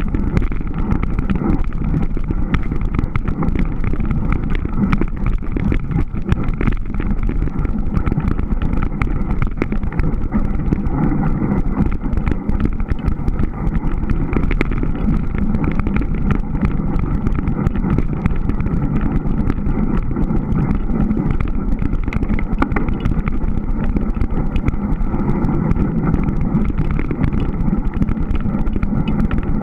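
Surly Moonlander fat bike ridden over snow: a steady, loud rumble with dense fine crackle from the tyres and drivetrain, picked up by a camera riding along with the bike.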